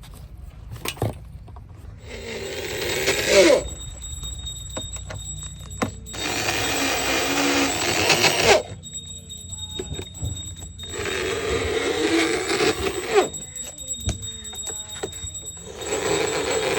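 Power drill running in four bursts of about two seconds each, with short pauses between.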